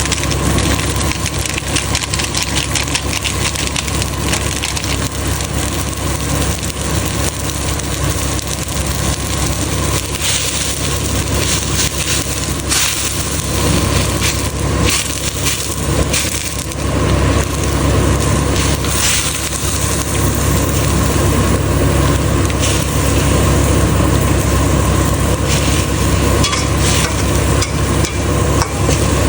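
Food being stirred in a pan on the stove: repeated scraping and clicking of a utensil with light sizzling, over a steady low rumble.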